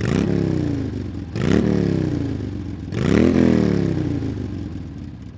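Honda CBR600 F4's inline-four engine revved three times, each blip rising quickly in pitch and then falling back slowly.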